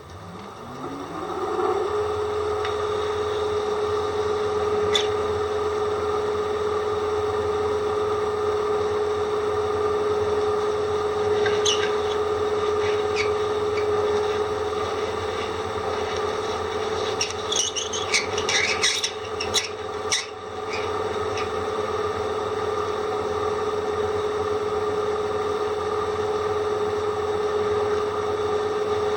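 Electric drill spinning up over about two seconds, then running at steady speed with a rasping grind as its dull bit works against the material. Short high-pitched whistling squeals come from the blunt bit several times around the middle.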